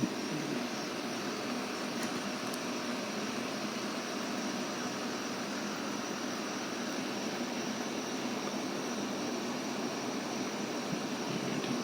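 Outdoor air-conditioner unit running with a steady fan whoosh and hum.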